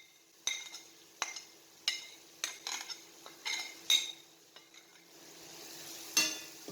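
A metal utensil stirring in a cooking pan, clinking and scraping against the metal about ten times at an irregular pace, each stroke ringing briefly, over a faint sizzle of the curry cooking.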